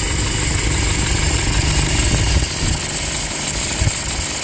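Toyota Hilux 2.5 diesel engine idling, with a steady scratching hiss from the front accessory belt drive over the engine rumble. The mechanic takes it for alternator noise, with a bearing noise underneath.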